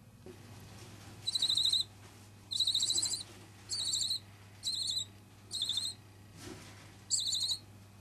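Two-week-old barn owl chick calling: six short, high-pitched wavering chirrups, roughly one a second.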